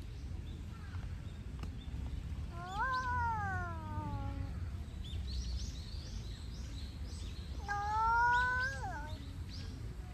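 Two long, wavering animal calls, each rising briefly and then sliding down in pitch, about five seconds apart. Faint high chirps of small birds come between them, over a steady low background rumble.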